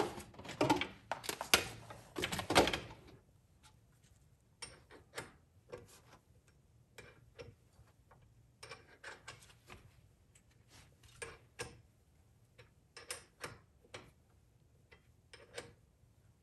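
Ratchet wrench clicking as a bolt is turned. The clicks come thick and fast for the first few seconds, then in short separate bursts.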